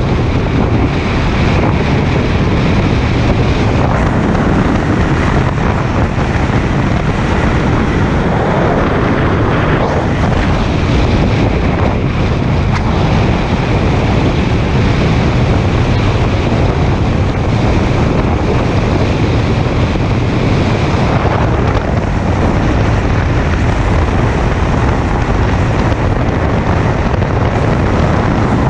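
Steady, loud wind noise on the microphone of a camera mounted outside a moving car, mixed with tyre and road noise at highway speed.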